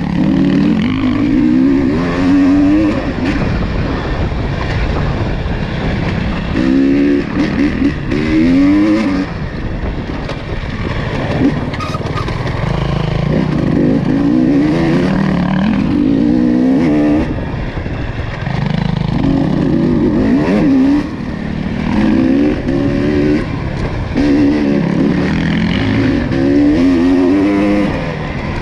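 ATV engine under way, revving up and easing off again and again, its pitch climbing every few seconds.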